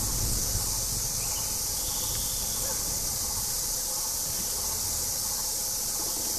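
Steady high-pitched forest insect chorus, with a faint low rumble underneath.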